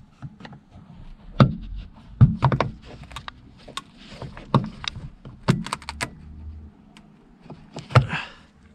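Irregular plastic clicks, taps and knocks as the rear ceiling lamp of a Citroen C4 Picasso is pried out of the roof lining, with sharper snaps about two seconds in and near the end.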